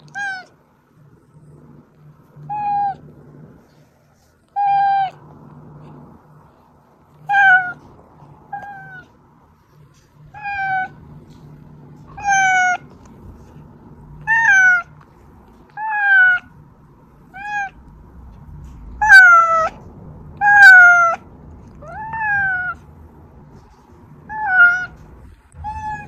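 Domestic cat meowing over and over, about fifteen separate meows spaced roughly every one and a half to two seconds, each call dropping in pitch at its end; two louder meows come about two-thirds of the way through.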